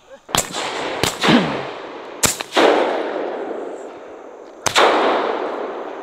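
Four shotgun shots fired at doves: two close together, a third about a second later and a fourth some two seconds after that, each trailing off in a long echo.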